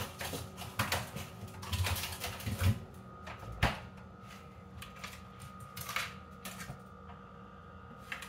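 Scattered clicks and knocks of an ice cube tray being fetched from the freezer, with one sharper knock about three and a half seconds in; a faint steady whine runs underneath in the second half.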